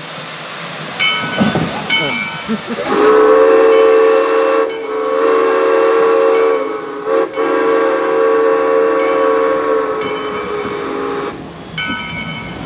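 Shay geared steam locomotive No. 10 blowing one long steam-whistle blast of about eight seconds, a steady multi-note chord with a brief dip partway through.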